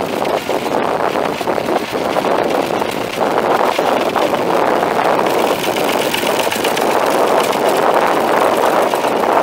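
David Brown 880A's three-cylinder diesel engine running steadily at idle, getting a little louder about three seconds in.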